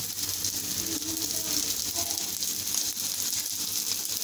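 Potato-and-egg shami kebabs sizzling in oil on a hot iron tawa, a steady frying hiss, with light metallic clicks and scrapes of steel tongs against the griddle.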